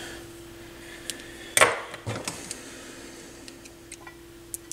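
Light handling noises of a turntable cartridge and headshell being worked with a small screwdriver: a short rustling noise about one and a half seconds in, then a few faint clicks, over a steady faint hum.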